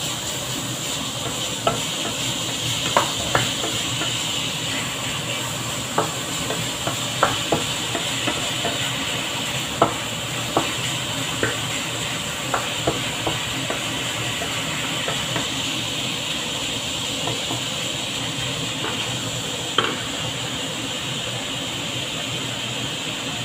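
Diced ham sizzling steadily in a nonstick frying pan, with a wooden spatula stirring and knocking against the pan in scattered sharp clicks, most of them in the first half.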